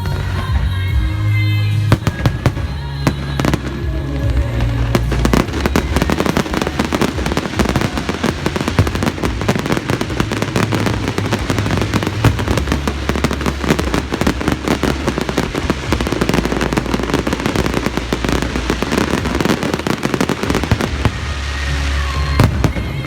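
Aerial fireworks going off in a dense run of rapid crackles and pops that starts about two seconds in and stops just before the end, with music playing underneath.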